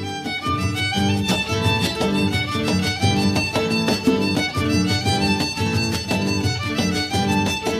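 Upbeat background music with a steady beat and a melody line.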